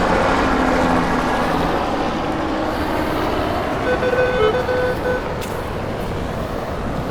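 Steady rushing background noise with the drone of a passing helicopter, fading out in the first second or two. About four seconds in, a metal detector sounds a string of short beeps, a target tone.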